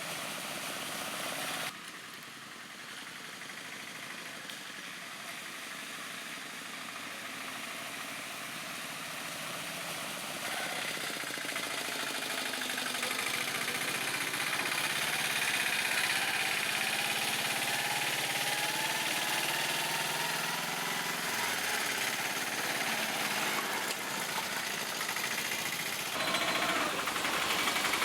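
Piaggio Ape three-wheeler autorickshaw engine running with a knocking chug. It drops abruptly about two seconds in, then grows steadily louder, with another step up near the end.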